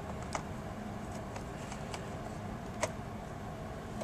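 Two small sharp clicks, one just after the start and one near the end, over a steady background hiss: a small screwdriver working the last screw that holds a replacement LCD panel in a laptop's screen lid.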